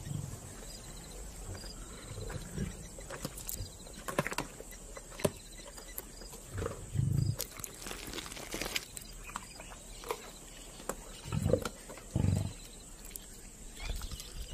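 Lions feeding on an elephant calf carcass: several short, low growls, the loudest about seven seconds in and twice near the end, over scattered wet chewing and tearing sounds with sharp clicks.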